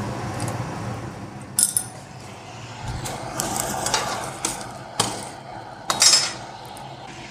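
Blacksmith's steel tongs and iron work clinking against the anvil and forge: a handful of light, separate metal clinks and clanks spread through, over a steady low hum.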